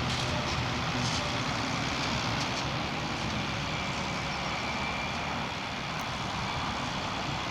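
Tractor diesel engine running steadily under load while pulling a plough through grassland.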